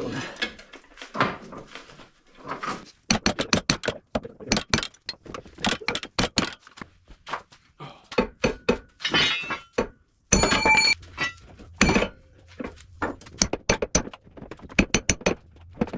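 Repeated metal-on-metal knocks and blows on a car's front suspension knuckle, working the lower ball joint loose, with one longer ringing metallic clang about ten seconds in.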